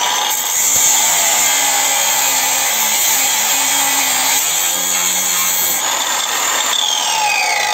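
Parkside Performance PWSAP 40 Li A1 40 V cordless 230 mm angle grinder running at full speed, its 1.9 mm cut-off disc cutting into a clamped steel flat bar with a steady, loud grinding screech. About seven seconds in, the disc leaves the cut and the motor's whine falls as it spins down.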